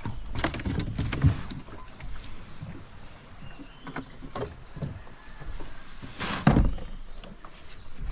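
Knocks and thuds of a person moving about in a small boat and setting a fishing rod down against the hull, several in a row with the loudest about six and a half seconds in. Faint short high chirps repeat in the background.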